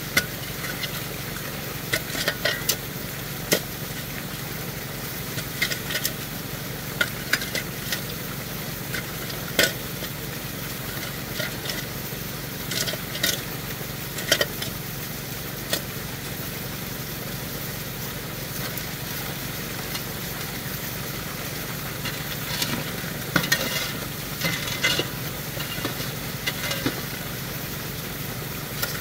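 Shovelfuls of gravelly pay dirt scraped up and thrown into a high banker's metal hopper, stones clattering in clusters every few seconds, over water rushing through the sluice and the steady hum of an engine.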